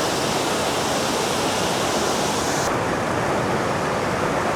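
Steady rush of water in the Cheonggyecheon stream, a dense even hiss without a break; its highest part drops away about two-thirds of the way through.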